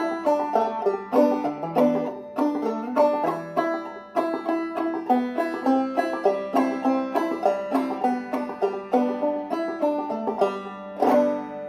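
Five-string banjo played clawhammer style in G tuning: a slow melody of plucked notes over a steady ringing drone, ending on a struck chord about eleven seconds in that rings out and fades.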